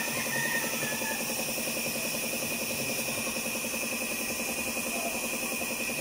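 An engine or motor running steadily at constant speed, with a fast, even pulse and a steady whine over it.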